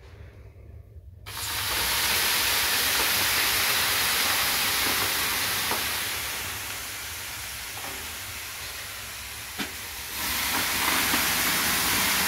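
Water thrown onto the red-hot stones of a Grill'd Dubrava sauna stove's open stone heater, at about 200–250 °C. It bursts into a loud hiss of steam about a second in, then dies down. A second ladleful hisses up again near the end.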